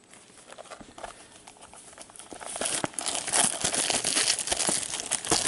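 Packaging being crumpled and crinkled in gloved hands, with some tearing. It starts as faint scattered crackles and turns into dense crinkling with sharp clicks about two seconds in.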